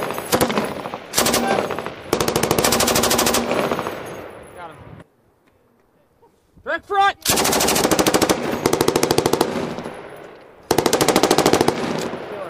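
M249 light machine gun, belt-fed 5.56 mm, firing several bursts of automatic fire, some short and some a couple of seconds long, each ringing off across the range.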